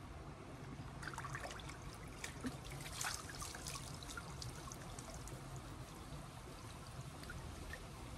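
Water splashing and trickling as hands wash hair in a river, with a cluster of splashes from about one to four seconds in, the loudest about three seconds in, over a faint steady low rumble.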